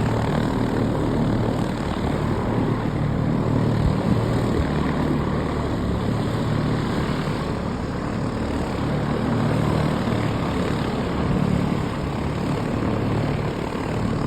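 Propeller aircraft engine running steadily.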